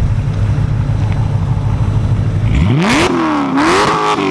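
A car engine idling with a low, steady rumble, then revved twice in quick succession about two and a half seconds in. The pitch climbs sharply, dips briefly, climbs again, then starts falling back toward idle near the end.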